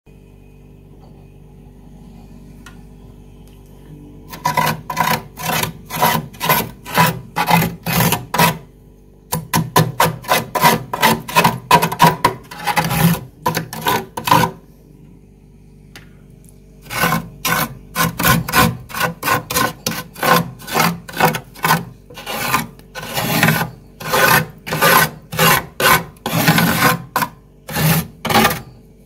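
A hand scraping thick, built-up frost inside a freezer compartment, in quick scraping strokes about two or three a second. The strokes come in three runs broken by short pauses. A steady low hum runs underneath and is the only sound for the first four seconds.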